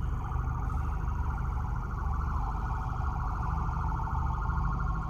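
Ambulance siren with a fast warble, heard from inside a car over the low rumble of the car's engine and road noise.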